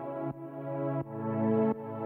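Background music: sustained chords, with a new one struck about every three-quarters of a second.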